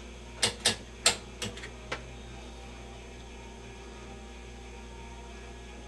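Rotary channel selector of a vintage Admiral 16R11 television clicked through six detents within the first two seconds, after which only a steady low hum remains.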